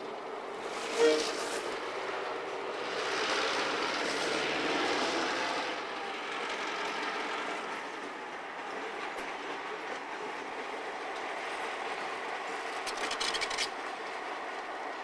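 Canadian National GP-series ('Geep') diesel locomotives and covered hopper cars rolling slowly past, with the engines running and steel wheels on the rails. A short sharp sound about a second in, and a quick run of clicks near the end.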